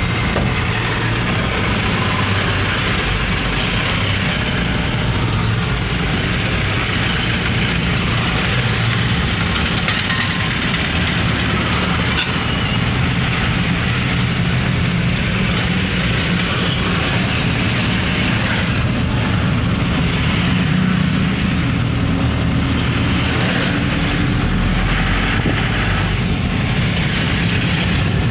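Steady engine and road noise inside a vehicle's cab as it rolls slowly, with a constant low engine hum.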